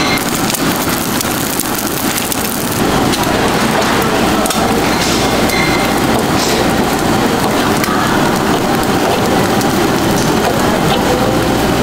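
Pot of ramen noodles boiling hard on a gas burner: a steady bubbling hiss over the burner's low rush, which grows fuller about three seconds in. A few light clicks of a utensil against the pot.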